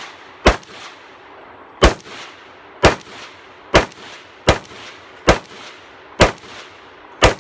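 A rifle fired eight times at a steady pace of roughly one shot a second. Each shot has a short ringing tail.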